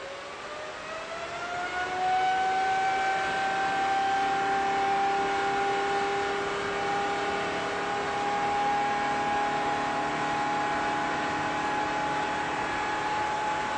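GE90-115B high-bypass turbofan bursting from idle to takeoff thrust on a test stand: its whine rises over about two seconds, then holds steady at full power over a loud rush of air.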